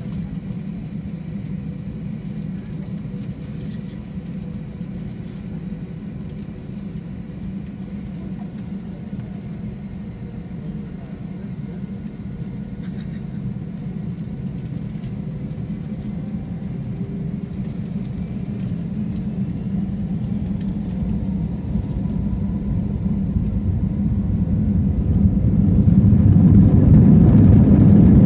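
Airbus A321-200 jet engines heard inside the passenger cabin: a steady low rumble that grows louder over the last several seconds and jumps sharply near the end as the engines spool up to takeoff thrust and the takeoff roll begins.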